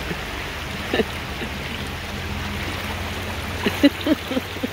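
Fast-flowing floodwater rushing steadily. A few brief pitched calls sound near the end.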